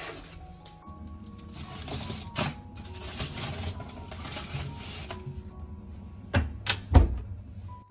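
Aluminium foil pan crinkling and scraping as it is handled and slid onto an oven's metal wire rack, then two heavy knocks about half a second apart near the end.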